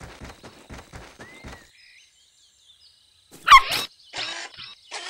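Light cartoon footstep sound effects, about four steps a second, stopping about a second and a half in. After a short pause, a sudden loud swooping chirp comes about three and a half seconds in. A run of short hissing pulses follows.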